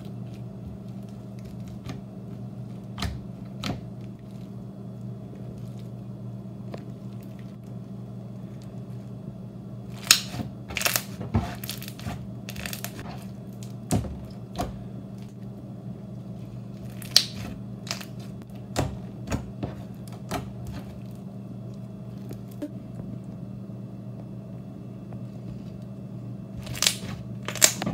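Hands squishing and poking a slime full of foam beads, giving scattered crunchy crackles and pops in short clusters, over a steady low hum.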